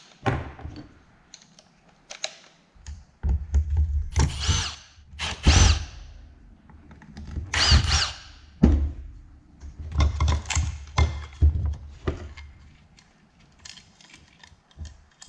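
Cordless Milwaukee FUEL power driver backing out screws from the hoverboard's aluminium frame, in several short runs, each with a motor whine that rises and falls.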